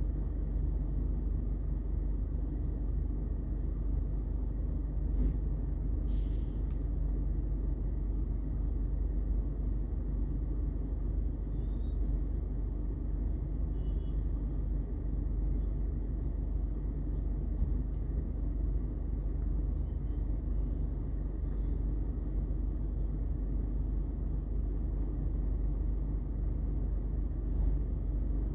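Rear-loader garbage truck's diesel engine running steadily with a low, even rumble while the truck lifts a dumpster at the hopper, with a few faint clicks and squeaks.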